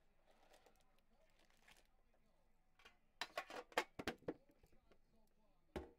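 Handling of a 2019-20 Upper Deck metal card tin and its foil card packs: a quick cluster of sharp clicks and taps about three seconds in as the packs come out of the tin onto the table, and one more tap near the end.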